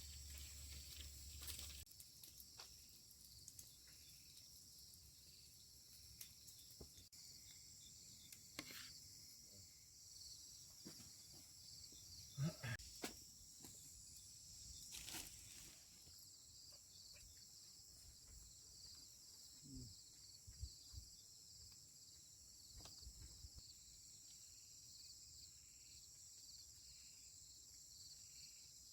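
Near silence: quiet outdoor ambience with faint, steady insect chirping high in pitch, and a few soft knocks now and then.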